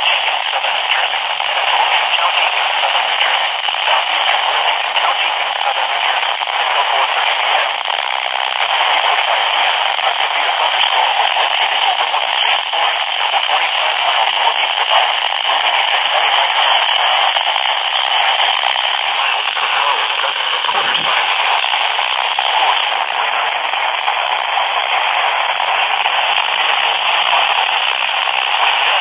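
Steady radio static: an even hiss from a radio receiver picking up no clear signal, held to a narrow band of mid frequencies.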